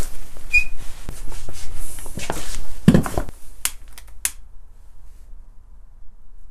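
Rustling and knocking of plastic-wrapped cardboard boxes being handled, with a heavier thump about three seconds in. Then two sharp clicks of a long-necked utility lighter being sparked to light an incense stick.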